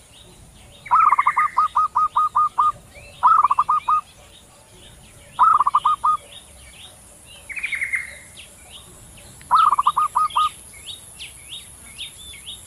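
Zebra doves (perkutut), male and female, answering each other with staccato cooing trills. There are five bursts of quick repeated notes, the first and longest lasting nearly two seconds and the fourth fainter. Under them runs a constant high chirping of other small birds.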